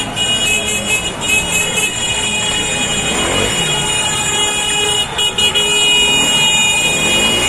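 Several car horns honking, held and overlapping, over the noise of slow traffic, with some shouting voices mixed in.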